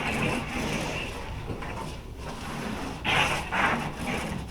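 Small toy race car being run back and forth through wet paint on a large sheet of paper: a rough rolling, scrubbing noise, with a few quicker, louder strokes about three seconds in.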